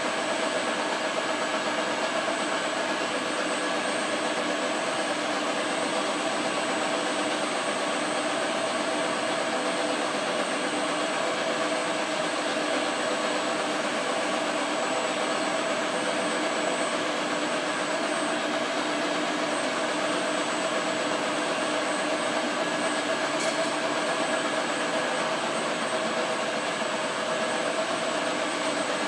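Vacuum pumps of an aluminium vacuum metallizing plant running: a steady mechanical drone with several fixed tones in it, including a thin high whine.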